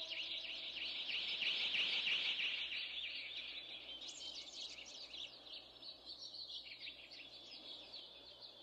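Many small birds chirping and twittering in a dense, fast chorus of short high notes, fading gradually; the last held chord of the music dies away in the first moment.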